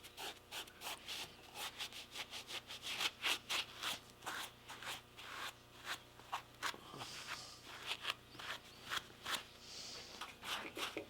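Quick, repeated rubbing strokes over the hair of an old deer mount, wiping dried acrylic paint off the hair.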